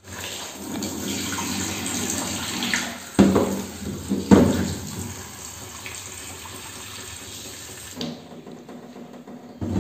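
Kitchen tap running into a stainless steel sink over a plastic bowl of cut potatoes being rinsed by hand, with two louder bursts about three and four seconds in. The sound grows quieter after about eight seconds.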